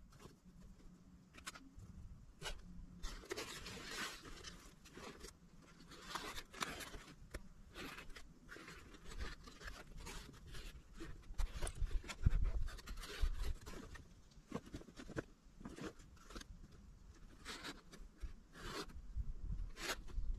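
Paracord being pulled, wrapped and cinched around a foam pad strapped to a fabric backpack: irregular scraping, rustling and small clicks of cord and material being handled, with a low rumble about twelve seconds in.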